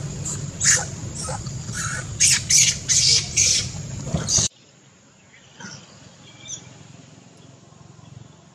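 Long-tailed macaque screaming in distress while a larger male pins it down: a rapid series of short, high-pitched shrieks over a low rumble. The shrieks cut off suddenly about four and a half seconds in, leaving quiet ambience with a couple of faint calls.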